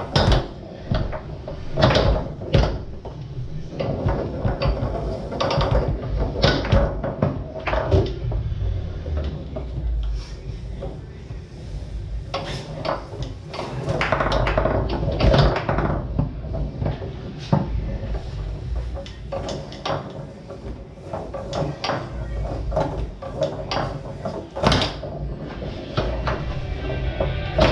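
Foosball being played on a Tornado table: the ball cracking off the plastic men and the table walls, and rods knocking, in a string of sharp, irregular knocks.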